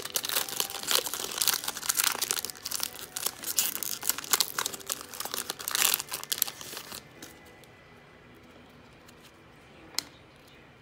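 Foil trading-card pack wrapper crinkling and tearing as it is ripped open by hand, for about seven seconds; then it goes quiet, with a single sharp click about ten seconds in.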